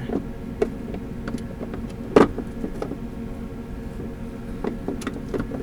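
Scattered knocks and clicks of hands handling the loose plastic case over the Jeep's auxiliary battery, the loudest knock about two seconds in, over a steady background hum.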